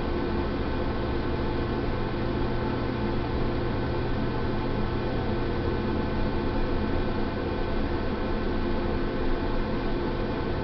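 Steady hiss with a low electrical hum, unchanging throughout, with no distinct events.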